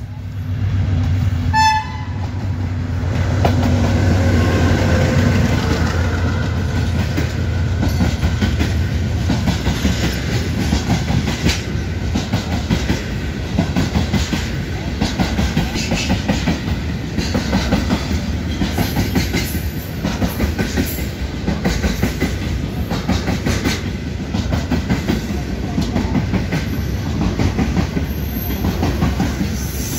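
AGE-30 class diesel locomotive 6005 running past with a loud low engine drone, followed by a long rake of loaded ZBKH hopper wagons rolling by. The wagons give a steady rhythmic clickety-clack of wheels over rail joints.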